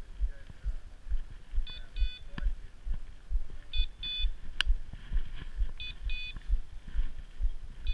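Electronic beeps from a bird dog's beeper collar, in short pairs about every two seconds, over the regular low thud of footsteps through dry grass. One sharp click about halfway.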